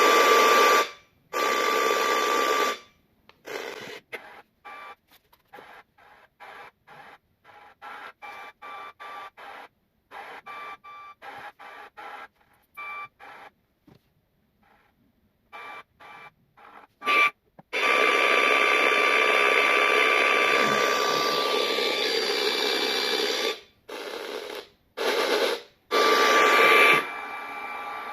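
A small Bluetooth speaker's FM radio giving out static hiss with a faint steady whistle in it. It cuts in and out in many short bursts with silent gaps between them, and holds steady for several seconds about two-thirds of the way through.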